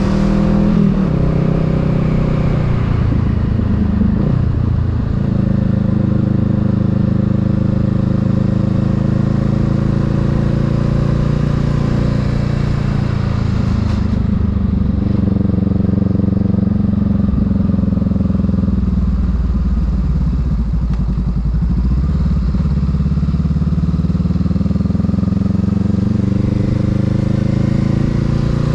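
Honda Rebel 500's parallel-twin engine running under way, steady through the middle, its pitch dipping and recovering a little after the midpoint and rising again near the end as the throttle is eased off and rolled back on. A steady hiss of road noise lies under the engine.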